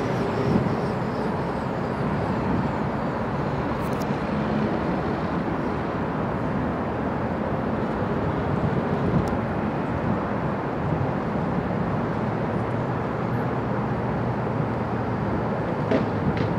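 Robinson R44 Raven II helicopter running steadily on the ground, its main rotor turning and its six-cylinder Lycoming piston engine running.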